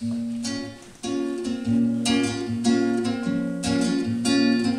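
Classical nylon-string guitar playing a song's introduction: a chord rings out at once, and after a short break just before a second in, chords are strummed and picked in a steady rhythm.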